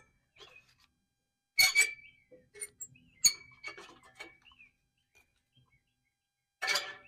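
Greenworks push reel mower turned by hand with a strip of test paper in it: three times a reel blade sweeps across the bed knife and snips the paper with a short, sharp crackle and a thin metallic ring of blade rubbing the freshly tightened bed knife. Faint chirps and squeaks in between.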